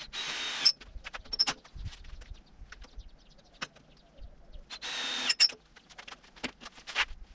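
Two short bursts from a hand-held power tool, one at the start and one about five seconds in, each ending with a sharp click, amid scattered metallic clicks and clanks from work on the steering parts.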